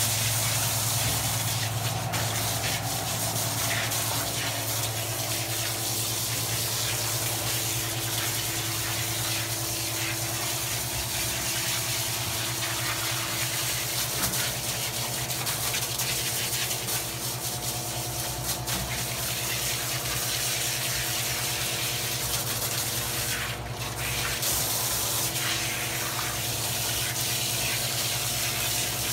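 Handheld hose sprayer running a steady spray of water, rinsing shampoo out of a dog's coat and splashing on a stainless steel grooming tub, with a steady low hum underneath. The spray breaks off briefly about three-quarters of the way through, then resumes.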